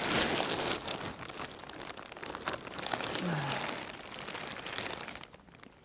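Crunching snow and rustling clothing as a freshly landed bream is grabbed off the ice in a knitted glove and handled. The noise is busiest at first and dies away near the end. A short grunt-like voice sound comes about three seconds in.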